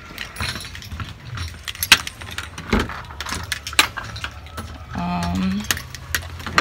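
Keys jangling, with a run of sharp clicks and knocks from things being handled.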